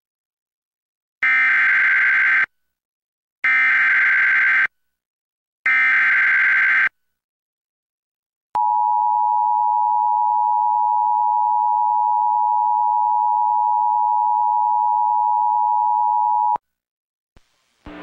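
Emergency Alert System header relayed by an FM radio station: three bursts of buzzing digital data tones, each about a second long, then the two-tone EAS attention signal, a steady tone held for about eight seconds that stops suddenly.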